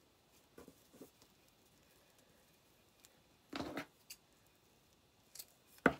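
Hands handling ribbon and jute twine while tying a knot: a few soft rustles, a louder rustle about halfway through, and a sharp tap near the end.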